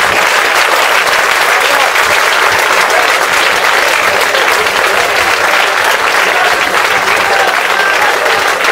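Crowd applauding loudly and steadily, with voices calling out through it.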